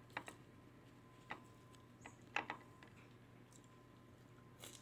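Near quiet with a few faint, scattered clicks from someone dipping bread into a ceramic bowl of sauce and eating it, over a faint steady hum.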